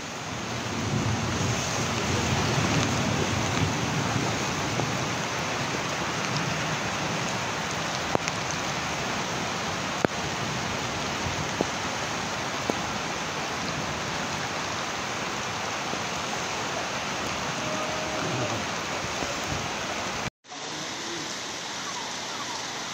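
Heavy tropical downpour: a dense, steady hiss of rain with a few faint ticks. It cuts off abruptly near the end, where a quieter steady rushing sound takes over.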